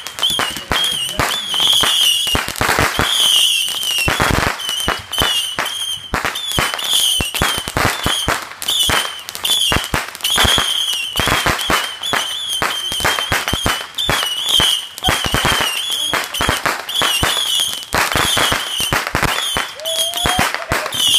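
Consumer aerial fireworks going off: a rapid, continuous string of crackling pops and bangs with a high, wavering whistle running through them.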